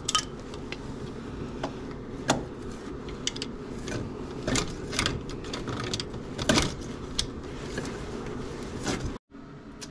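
Scattered metallic clicks and knocks of a tool on a serpentine belt tensioner and of the belt being handled around the engine's pulleys, over a steady low hum.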